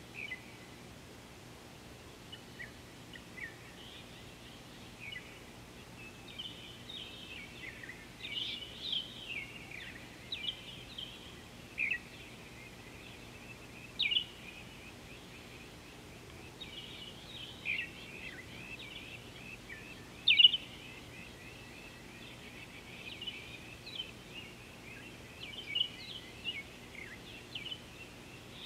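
Wild birds calling and chirping: many short, high notes, some in quick trills, coming in irregular bouts, the loudest about two-thirds of the way in.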